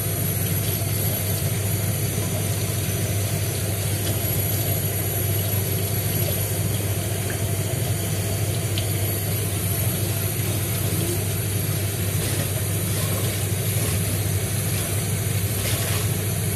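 Kitchen tap running in a strong, steady stream into a stainless steel sink, splashing over pork bones being rubbed clean by hand in a mesh strainer. The water pressure is high.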